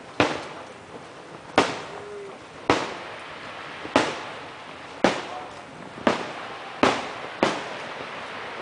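Aerial firework shells bursting in a steady series of sharp bangs, about one a second, eight in all, each trailing off as it fades.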